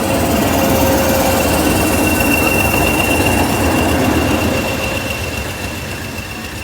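A train running close by: a loud rushing noise with a steady high-pitched squeal over it, easing off near the end.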